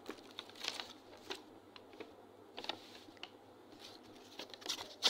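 Quiet room tone with scattered faint clicks and ticks.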